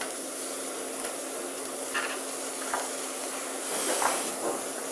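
Steady hissing and sizzling from a hot wok on the stove, with a few light knocks and clinks as soup ingredients go in.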